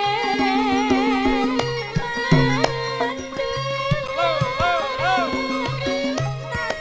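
Javanese gamelan music for tayub: a kendang drum plays a running pattern of low and higher strokes under steady ringing metallophone tones, with a wavering, ornamented melody line above.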